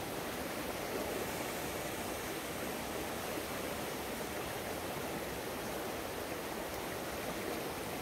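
Fast-flowing stream rushing steadily over rocks.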